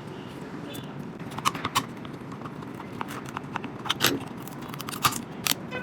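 Scattered small clicks and scrapes of a spudger prying an iPhone 7 Plus battery loose from its aged adhesive, over a steady low background hum; the sharpest click comes about four seconds in.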